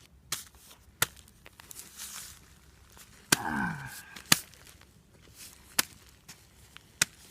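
A series of sharp knocks or cracks, about six, spaced irregularly, with a short sound falling in pitch about three seconds in.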